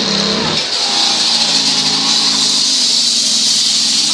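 Wooden houses burning in a large fire: a loud, steady hiss.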